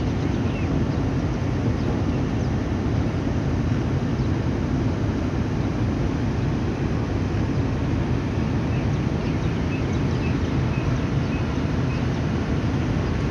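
Passenger train running, heard from an open coach door: a steady rumble of wheels on the track with rushing air.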